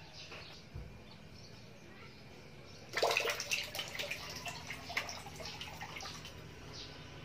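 Water splashing and churning at the stern of a small plastic-bottle toy boat as it is driven through the water, starting suddenly about three seconds in and carrying on with a quick, uneven patter.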